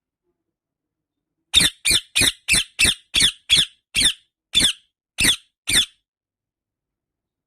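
Indian ringneck parakeet giving a run of eleven short, high-pitched calls, each dropping in pitch, starting about a second and a half in; they come about three a second at first and space out toward the end.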